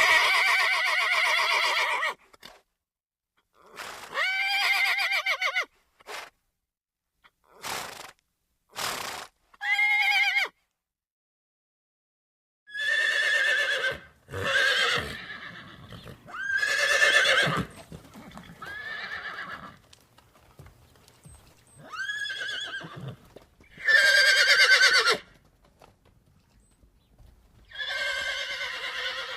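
Horse whinnying and neighing, about a dozen separate calls one after another. Each call has a shaking, quavering pitch and lasts from half a second to two seconds, with brief silences between them.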